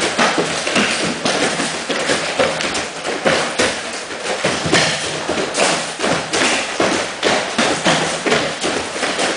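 Punches and kicks striking a handheld kick shield in quick, irregular succession, about two to three hits a second.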